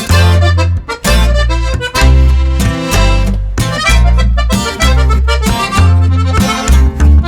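Background music: an upbeat track with an accordion- or harmonica-like lead over a heavy bass that hits about once a second.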